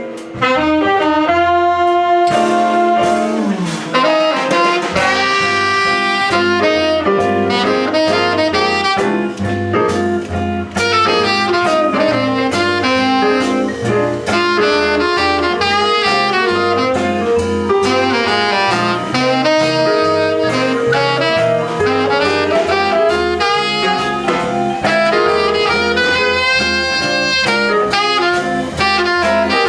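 Live jazz band: a saxophone plays a continuous melodic line over the band's accompaniment, with a steady stepping bass line underneath.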